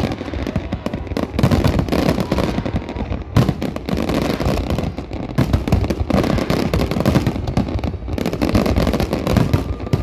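Fireworks display with many shells bursting in quick, overlapping succession: a dense, continuous barrage of bangs and crackle.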